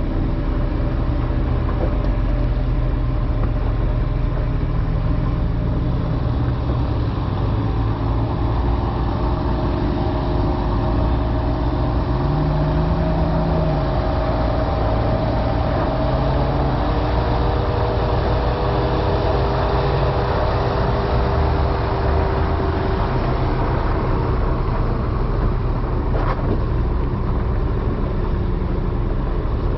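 Ram 1500 TRX's supercharged 6.2-litre V8 running at low revs as the truck crawls along a gravel trail, with the engines of following trucks underneath. The engine note lifts briefly a couple of times.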